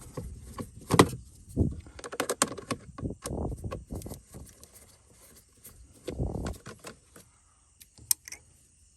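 Scattered clicks, taps and rattles of hands and a small screwdriver working at the plastic interior door trim of a 2010 Hyundai Veracruz, with a sharp click about a second in and a dense run of small clicks a little later.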